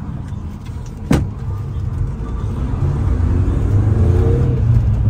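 Engine and road rumble inside a public-transport bus's cabin, with a sharp knock about a second in. From about three seconds in the engine pitch rises as the bus speeds up.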